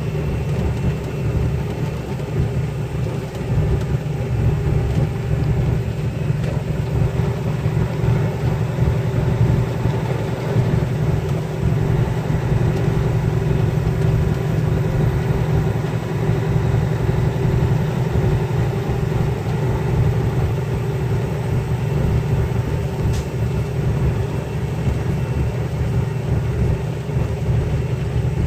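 Heavy diesel truck engine running steadily under load, heard from inside the cab as a deep, even rumble with a faint steady tone over it. A single short click comes near the end.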